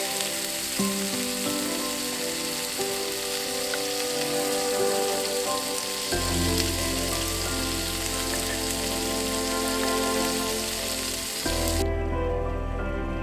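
Food sizzling in a hot pan, a steady crackling hiss under background music with sustained notes and a deep bass that comes in about halfway. The sizzle cuts off suddenly near the end, leaving only the music.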